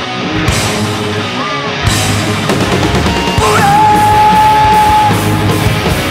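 Heavy metal band playing live at full volume: distorted guitars, bass and drums. A little past halfway a single high note slides up and is held for about a second and a half.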